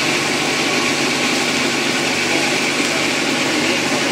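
Boat engine running steadily, a constant drone with an even hum.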